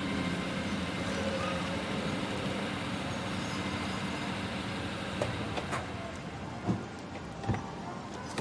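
A car running: steady engine and road noise, with a few light knocks in the second half.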